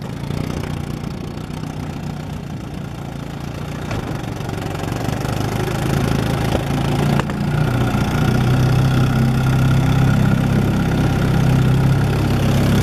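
1957 Johnson 18 hp Sea-Horse two-stroke twin-cylinder outboard motor running. It grows louder over the first eight seconds or so as it picks up speed, then runs steadily.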